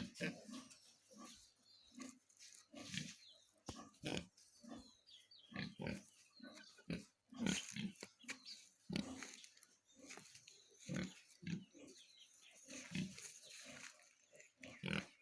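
Sows and their piglets grunting: many short grunts at irregular intervals.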